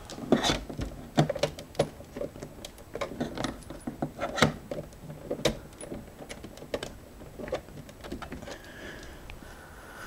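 Irregular clicks, clatters and rattles of cables and small computer parts being handled and rummaged through, with a few sharper knocks, busiest in the first seven seconds and quieter near the end.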